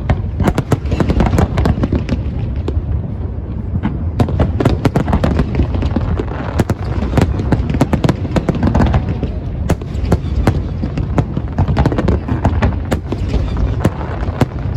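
Fireworks show: a dense, rapid barrage of aerial shell bursts, many sharp reports a second over a continuous low rumble.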